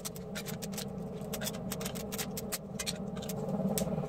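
Candle stubs and tea-light cups being handled in a metal muffin tray: a run of small, irregular clicks and clinks over a steady low hum.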